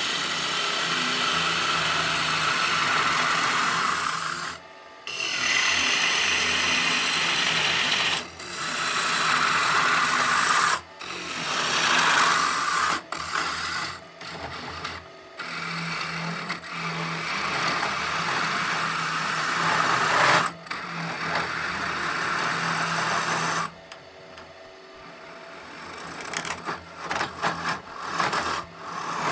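Bowl gouge cutting into a spinning locust blank on a wood lathe, hollowing out a mortar: a steady scraping, shaving cut that stops briefly several times as the tool is lifted, with choppier short cuts near the end. The lathe's faint low hum runs underneath.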